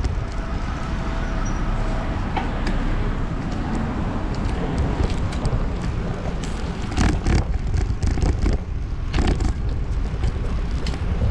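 Wind buffeting the microphone and road rumble while riding a bicycle along a street, with a few sharp rattles and knocks from the bike, most in the second half.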